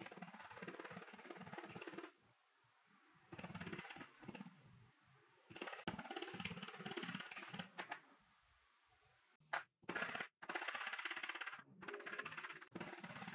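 Nylon-faced hammer rapidly tapping a twisted brass wire ring against a steel bench block to level the band. The taps come in several quick runs with short pauses, with a few sharper single knocks about two-thirds of the way through.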